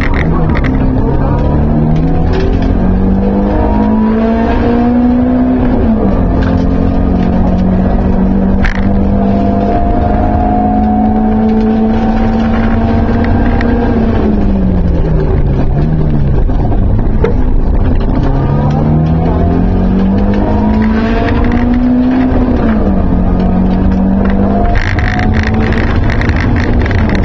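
BMW 318is rally car's 1.8-litre four-cylinder engine heard from inside the cabin under hard acceleration: it climbs in pitch, drops sharply at a gear change, holds steady for several seconds, falls away, then climbs and shifts again. Near the end gravel crackles and hisses under the tyres.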